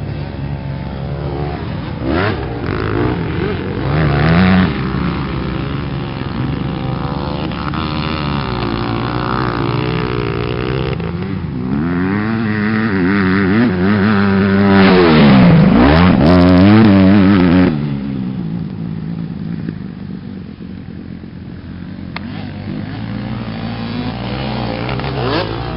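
Motocross bike engines revving up and down through the gears, their pitch rising and falling repeatedly. Loudest from about fifteen to eighteen seconds in, as a bike passes close, then fading and building again near the end.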